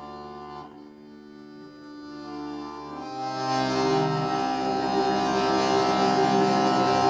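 Accordion playing held chords, quiet at first and swelling to full volume about three seconds in.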